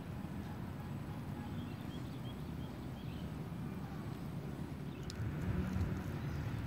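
A low, steady motor hum that grows louder about five seconds in, with a few faint high chirps over it.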